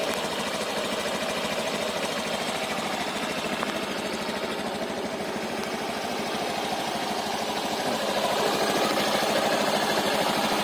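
Honda Genio's 110 cc single-cylinder scooter engine idling steadily while it warms up on a morning start, with the rear wheel turning slowly at idle. It gets a little louder near the end.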